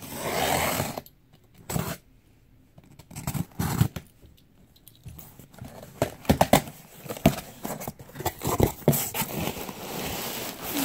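Packing tape ripped off a cardboard shipping box, with a loud tear in the first second, then scraping, knocks and rustling as the flaps are pulled open and the wrapping inside is handled.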